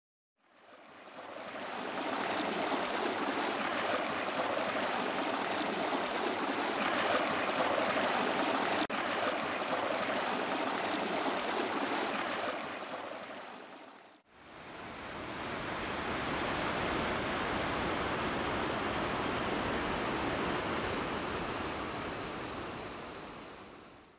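A shallow creek running over rocks, a steady rush of water. It fades out a little past the middle, then a second stretch of the same rushing water fades in and fades out near the end.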